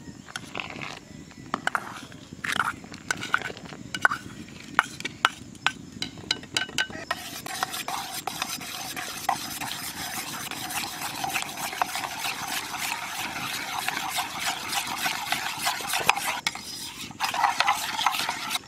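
Metal spoon stirring powdered milk into hot water in a stainless steel pot. A few separate clinks and scrapes come first; about seven seconds in it turns into fast, continuous whisking, with the spoon ticking against the pot's sides.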